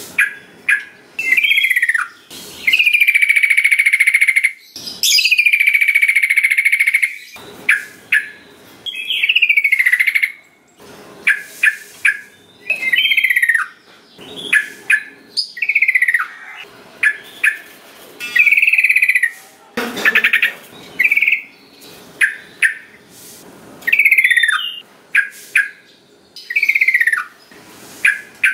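Sooty-headed bulbul (trucukan) singing: two long held whistled notes a few seconds in, then a string of short falling notes, roughly one a second.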